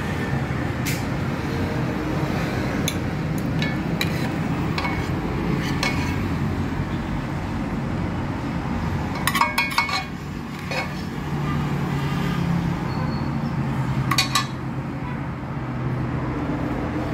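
Metal ladle scraping and clinking against a metal cooking pot and plate while chicken in sauce is served. There is a dense run of clinks about nine to ten seconds in and another near fourteen seconds, over a steady low hum.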